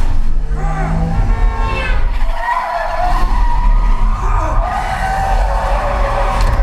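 Film sound effects of a car skidding, its tyres squealing over a heavy deep rumble, played back through a home theater system with subwoofers and recorded in the room.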